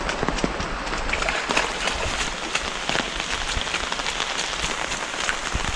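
Steady rain falling, with the patter of many individual drops.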